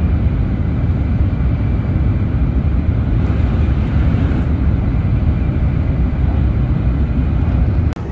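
Kyushu Shinkansen 800 series train running at speed, heard from inside the cabin: a steady, loud low rumble and rush. About four seconds in there is a brief rise in hiss as another train passes alongside. Near the end the sound drops suddenly to a quieter level.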